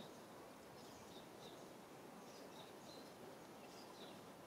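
Near-silent outdoor background with faint, repeated short bird chirps.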